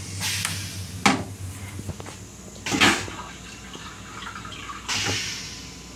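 Railcar toilet flushing: short bursts of rushing water and hiss as the bowl empties, three in all, with a sharp knock about a second in.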